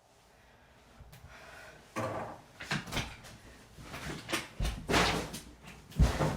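A run of irregular knocks and clatters, with two heavy thumps near the end.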